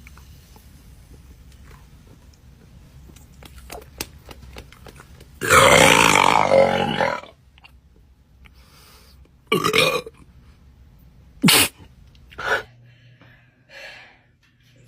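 A person burping: one long, loud burp of nearly two seconds about five and a half seconds in, then a few much shorter sounds over the next several seconds.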